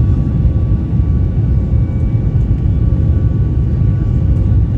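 Steady low rumble of engine and airflow noise inside the cabin of a Boeing 737 MAX 9 climbing after takeoff, with faint steady whine tones above the rumble.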